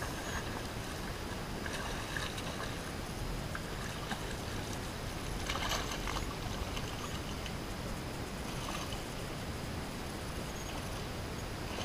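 Steady wind buffeting the microphone, with a few short, brighter rustling sounds on top, the loudest about six seconds in.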